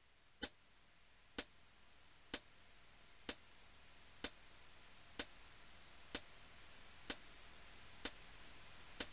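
Clock ticking steadily, about one tick a second, over a faint hiss that slowly rises.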